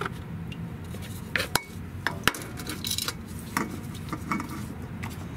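Light metallic clinks and taps of a spin-on oil filter and tools being handled, with a few sharper clicks between about one and three seconds in.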